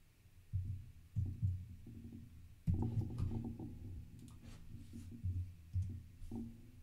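Irregular keystrokes on a computer keyboard, each a dull low thud with a faint click, with several in quick succession about three seconds in.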